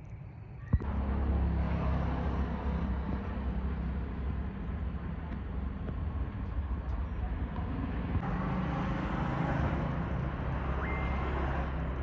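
A vehicle engine running with traffic noise, starting abruptly after a click about a second in. A short high beep sounds near the end.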